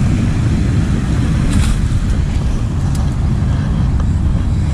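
Wind buffeting the camera microphone: a loud, steady low rumble that flutters, with a few faint clicks.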